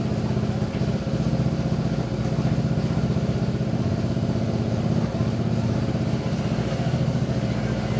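A small engine idling steadily, with an even, pulsing low hum.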